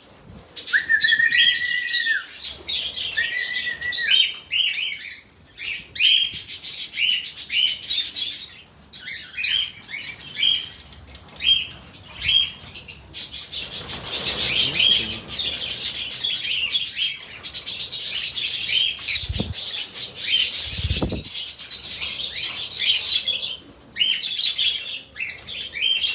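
Pet lovebird chirping and chattering: a run of short, sharp, repeated chirps, two short whistled notes near the start, and long stretches of rapid, high-pitched chatter.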